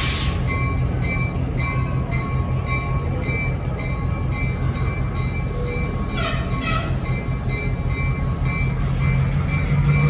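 Slow-moving passenger train rolling past, a diesel engine's low drone underneath and growing louder near the end. A bell rings steadily about twice a second. A short wheel squeal comes about six seconds in.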